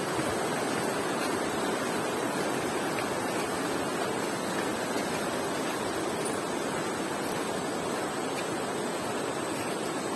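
River water rushing over rocks below a suspension bridge: a steady, even rush of running water.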